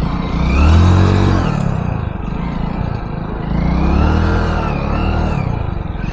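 Hero Splendor motorcycle's single-cylinder four-stroke engine revved hard twice, the pitch rising and falling each time, as the rear wheel spins in mud.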